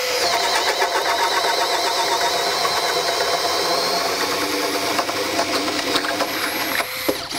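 Makita GPH01 40V XGT brushless hammer drill-driver in low gear, boring a large self-feed bit into wet lumber near a knot: a steady motor whine under load that wavers slightly as the bit bites, stopping near the end.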